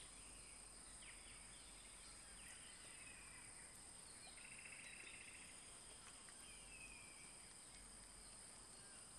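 Near silence: faint natural ambience with a steady high hiss and a few faint, short bird chirps.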